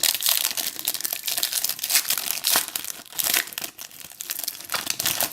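A trading card pack's wrapper being torn open and crinkled by hand, an irregular crackling that is busiest in the first three seconds and thins out toward the end.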